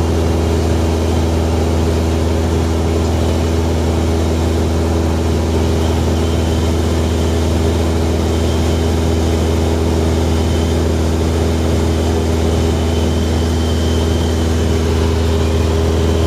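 Light propeller plane's engine and propeller droning steadily in cruise, heard inside the cabin as an even low hum that does not change.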